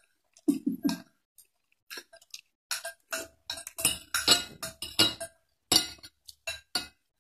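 Metal spoon and fork clinking and scraping against a glass bowl in an irregular run of short, ringing clinks.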